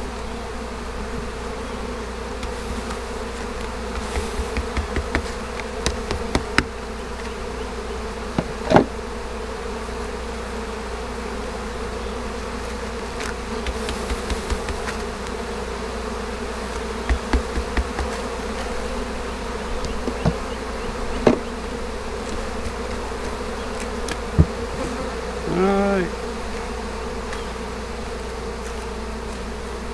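Honeybees humming steadily around an open hive, with a louder buzz briefly near the end. Scattered clicks and knocks of wooden frames and hive parts being handled run through it.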